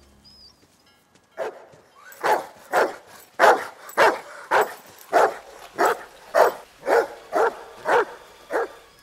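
A dog barking over and over, about two barks a second, starting about a second and a half in.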